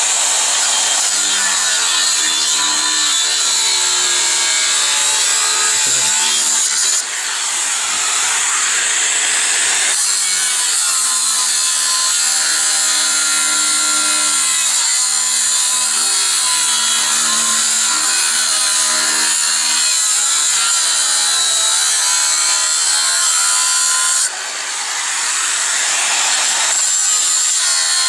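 Angle grinder cutting into 6 mm steel plate: a continuous loud grinding with a wavering whine. Twice the sound drops briefly and builds back up.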